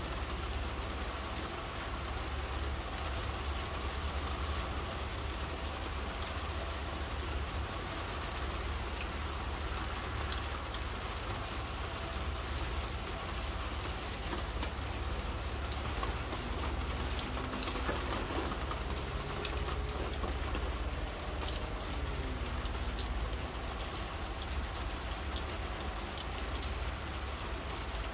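Rain falling steadily, with many small drop ticks, over a constant low rumble.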